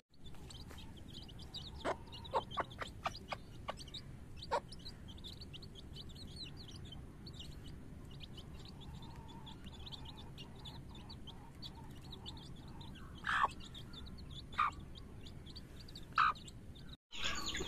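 Young chicks peeping continuously around a mother hen. A quick run of short, sharp sounds comes about two seconds in, and three louder short calls come near the end.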